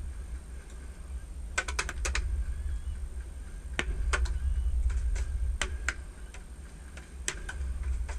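Airsoft guns firing: sharp snapping clicks, a quick run of about five shots a couple of seconds in, then single shots spaced irregularly, over a steady low rumble.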